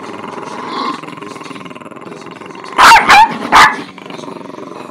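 Small dog growling in play, then three loud, sharp barks close together about three seconds in, demanding its toy.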